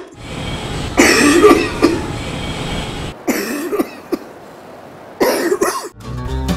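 Coughing in three separate fits a second or so apart: the recorded cough of an anti-smoking poster whose sensor has drawn in cigarette smoke. Acoustic guitar music starts near the end.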